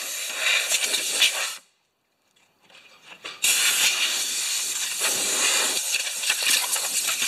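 Compressed-air blow gun on a quarter-inch air line blasting debris off the underside of a lawnmower deck: a loud hiss of rushing air that cuts off about one and a half seconds in, then starts again about two seconds later and keeps going.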